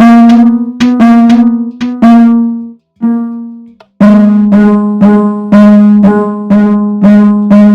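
Electronic fire alarm chimes striking about twice a second, each stroke ringing out and decaying. After a couple of longer rings, a short silence and a click, a lower-pitched chime takes over at the same steady pace.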